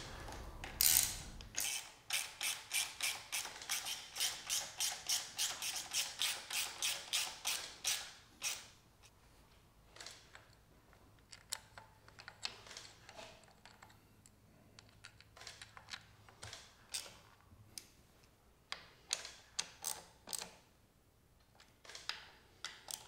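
Hand ratchet clicking fast and evenly, about six clicks a second for several seconds, as the valve cover bolts are run down, followed by scattered lighter clicks and taps of tools on the engine.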